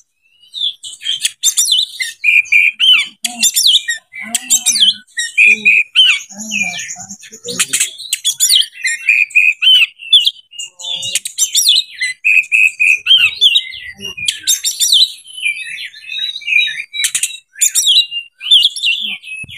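Oriental magpie-robin (kacer) in breeding condition, singing a fast, varied song of whistles, warbles, trills and harsh chattering notes with only short breaks.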